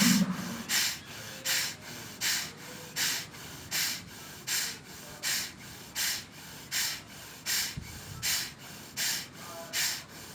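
Forceful, sneeze-like exhalations blown out through the left nostril with the right nostril pinched shut by the thumb, repeated in a steady rhythm of about four every three seconds: single-nostril bhastrika pranayama breathing.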